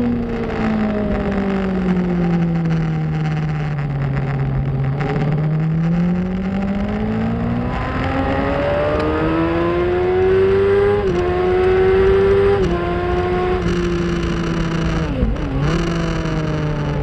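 2004 Yamaha R1's inline-four engine at speed over constant wind rush: the revs fall slowly through a corner, then climb hard out of it with two upshifts about a second and a half apart, then a further step, and a quick dip and recovery near the end.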